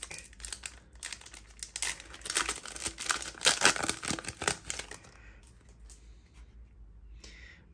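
Foil Yu-Gi-Oh booster pack being torn open and its cards slid out of the wrapper: a run of sharp crinkling and tearing crackles, loudest near the middle, that dies away about five seconds in, leaving faint sounds of the cards being handled.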